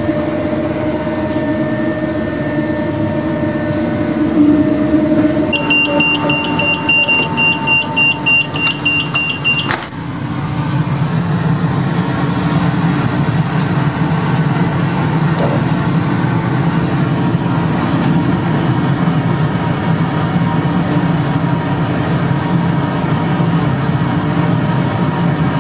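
Inside a double-deck electric suburban train standing at a station: a steady hum, then about five seconds in a rapid high-pitched pulsing warning beep of the closing doors for about four seconds, ending in one sharp clunk as the doors shut. A steady low hum of the train follows.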